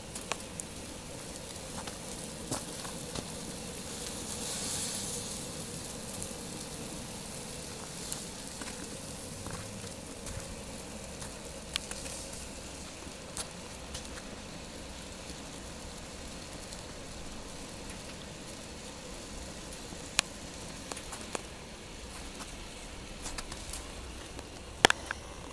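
Wood fire crackling in the firebox of a cinder-block barrel boiler, with sharp irregular pops (the loudest near the end) over a steady hiss from the sap boiling in the pan above. The hiss swells briefly about four seconds in.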